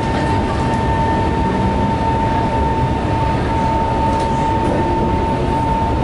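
Interior of a Shanghai Metro Line 11 train pulling out of an elevated station and picking up speed: a steady low rumble under a steady high whine that stops just before six seconds in.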